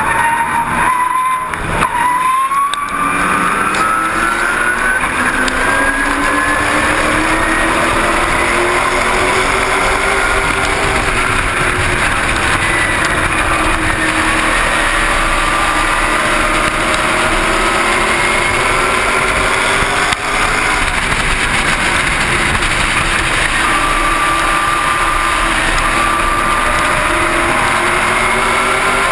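Super Late Model race car's V8 engine heard on board, running hard at race speed. Its pitch dips briefly near the start, then climbs steadily for several seconds, and it sags and climbs again later on as the car lifts for the turns and accelerates down the straights.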